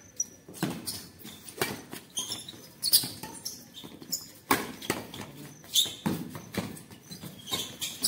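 Badminton rally: rackets striking the shuttlecock back and forth, sharp pops about one every second or so, some seven in all, with players' footsteps scuffing on the concrete court between the hits.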